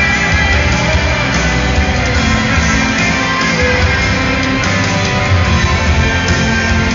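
Loud instrumental worship music from a live band, with a steady low bass line and no singing.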